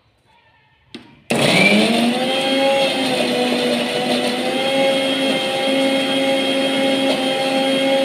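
Bajaj GX7 mixer grinder switched on with a click of its knob about a second in. Its motor starts abruptly and runs at high speed with a steady whine, grinding chopped vegetable scraps (coriander stems, carrot, tomato).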